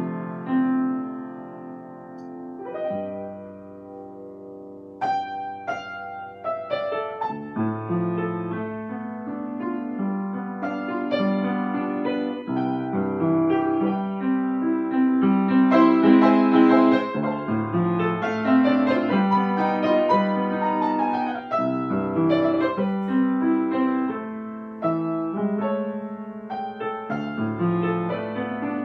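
Upright piano played solo: a melody over chords, softer for a few seconds near the start, then fuller and louder from about five seconds in.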